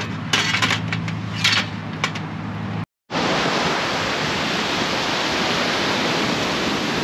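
Wind and surf noise on the beach: a steady, even rush. Before it, a steady low hum with a few light clinks, cut off abruptly about three seconds in.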